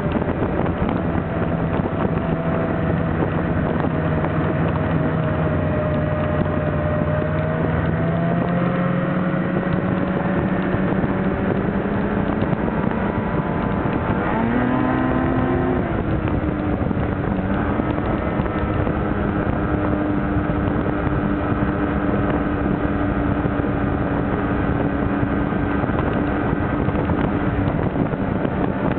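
Snowmobile engine running continuously, its pitch climbing sharply about halfway through and then holding steady at the higher note, with wind buffeting the microphone.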